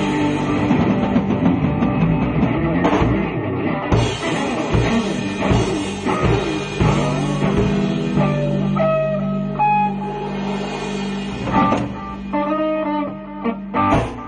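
A rock band playing live in a small room: electric guitars over a drum kit. A held low note runs through the middle. The music stops on a final loud hit at the very end.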